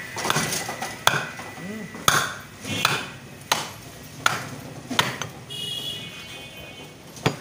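Butcher's knife or cleaver knocking against a wooden chopping block while cutting up a mutton carcass, a series of sharp knocks roughly one a second.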